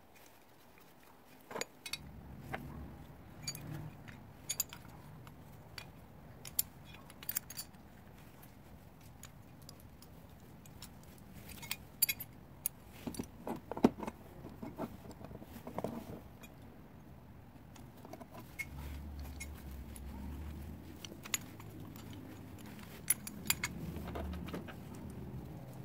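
Steel caster hardware (bolts, Nylock nuts, brackets and caster wheels) being handled on a wooden workbench, in scattered metallic clicks and clinks that are busiest about halfway through and again near the end. A low steady rumble runs underneath from about two seconds in.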